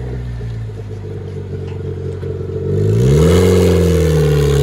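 Turbocharged 1.6-litre four-cylinder engine of a 1991 Mazda Miata with turbo-back straight pipes, running low, then revving up sharply about three seconds in and holding the higher revs.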